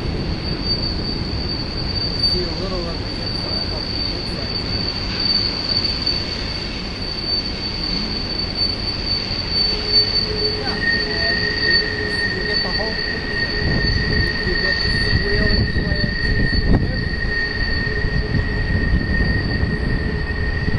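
Freight train's wheels squealing against the rails as the cars roll past: one steady high squeal throughout, joined about ten seconds in by a second, lower squeal, over a rumble that grows louder in the second half.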